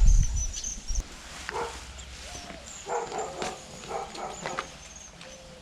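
A dog barking several times, short barks spaced out over a few seconds.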